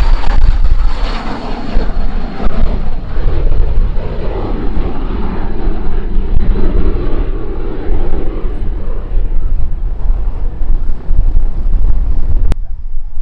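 Airplane engine noise from an aircraft on or over the airfield, a loud steady rumble with a faint high whine that slides slightly down in the first seconds. The sound changes abruptly near the end.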